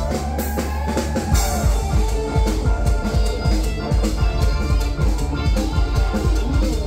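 Amplified live band playing Thai ramwong dance music with a steady, fast drum-kit beat.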